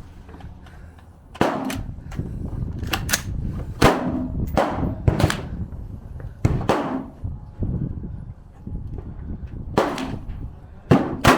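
Gunshots on a firing range: about a dozen single shots at uneven spacing, some close together in pairs, each followed by a short echo.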